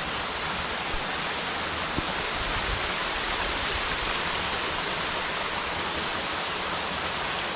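Small waterfall in a deep forest gorge: a steady, even rush of falling water.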